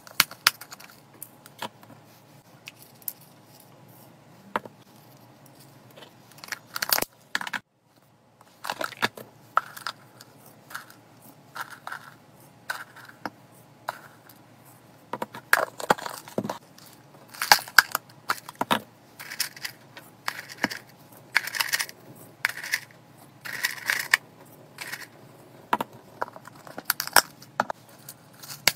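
Dry seeds and grain mix being scooped out of clear plastic lidded containers and poured into ceramic bowls: irregular short rattles of falling seeds and clicks of plastic, coming more often in the second half.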